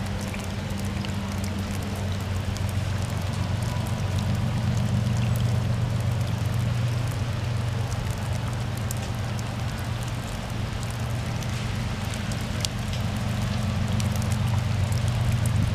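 Steady rain falling, with scattered drops ticking, over the low steady drone of a diesel locomotive's engine.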